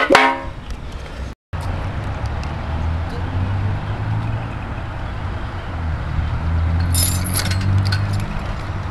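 Skateboard slapping and clattering on concrete at the very start, its ringing dying away within half a second. After a brief dropout, a steady low rumble, with a short burst of sharp scraping noise about seven seconds in.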